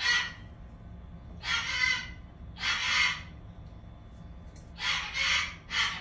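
Cockatoo giving a series of about five short, harsh squawks, each roughly half a second long and spaced a second or so apart.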